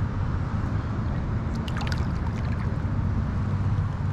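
Shallow lake water sloshing and splashing around a hand holding a large rainbow trout upright to revive it before release, with a few brief splashes about a second and a half in, over a steady low rumble.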